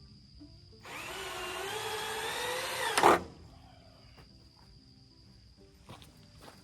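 A power drill driving a screw into a green oak siding board for about two seconds, its motor whine rising slightly in pitch, ending in a sharp snap as the screw seats. Faint background music otherwise.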